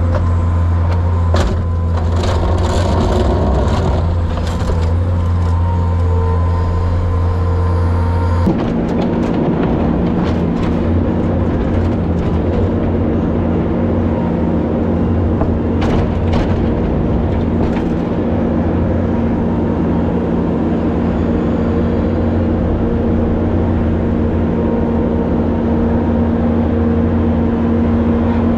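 Farm tractor engine running steadily under load, with a sudden shift in its hum about eight seconds in and a few knocks and rattles.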